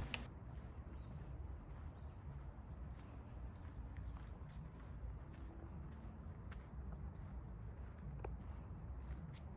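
Faint, steady high-pitched chirring of insects, such as crickets, over a low background rumble, with a few soft ticks.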